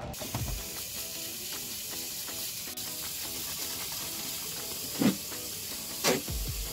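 Food frying in a hot pan, with a steady sizzle. A few sharp knocks come near the end, the loudest about five seconds in.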